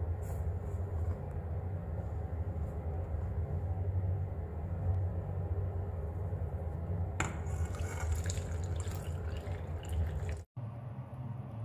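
A steady low hum with soft scraping and handling sounds as dry rice flour and salt go into a steel saucepan. Water pours into the pan near the end.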